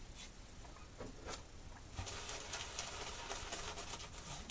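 Gillette Super Speed double-edge safety razor with a Feather blade scraping through lathered stubble: a few separate strokes, then a quick run of short raspy strokes from about two seconds in. The razor glides fast and without nicks because the lather is slick.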